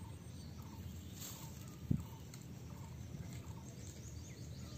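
Hands handling plastic baskets and string, with soft pattering and rustling and a single low knock about two seconds in.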